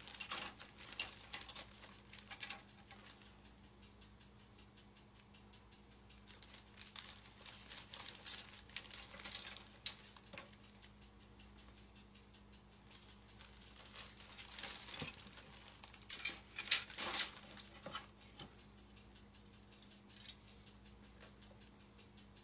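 Clear plastic bags holding plastic model-kit sprues crinkling and rustling as they are handled. The crinkling comes in several bursts with quieter gaps between, and it is loudest about three-quarters of the way through.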